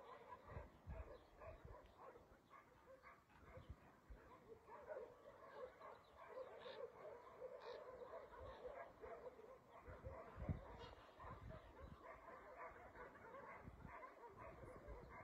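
Faint chorus of many dogs barking at a distance, continuous and uneven, with a few low thumps close to the microphone.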